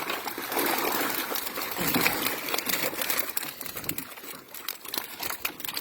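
Water splashing and dripping with many small slaps as a hoop net packed with thrashing catfish is hauled up out of the water.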